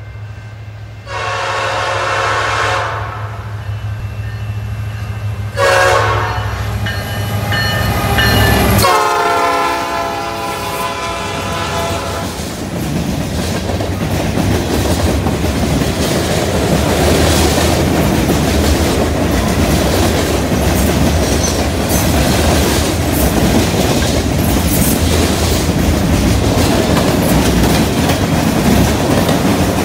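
Freight train led by two CN diesel locomotives passing close by: the horn sounds a long blast, a short one and another long one, with a drop in pitch as the locomotives go by about nine seconds in, over the engines' low rumble. Then the freight cars' wheels clatter steadily over the rails and a junction switch.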